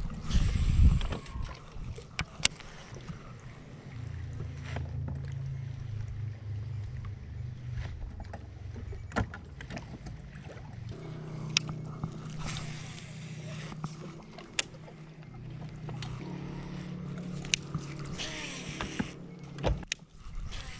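Electric trolling motor humming steadily, its pitch stepping higher about eleven seconds in. Scattered sharp clicks come over the hum, and a low rumble of wind on the microphone sounds at the start.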